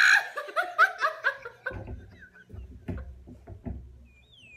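A man and a woman laughing uncontrollably: a loud high burst of laughter at the start breaking into quick repeated pulses, then quieter breathy, gasping laughter, with a thin squeal sliding down in pitch near the end.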